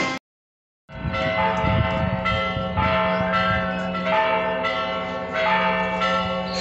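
Church bells ringing, a quick run of repeated strokes that starts about a second in after a brief silence.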